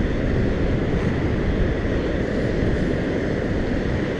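Steady low rumbling noise of wind and ocean surf on an open beach.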